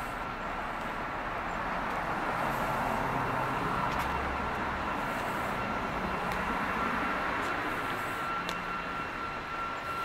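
Steady vehicle noise that swells a few seconds in and eases off toward the end, with a faint steady high whine.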